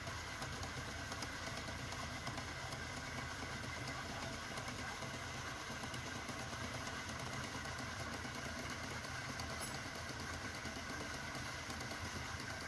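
Wood lathe's motor running at a steady speed, an even hum with a whirring hiss.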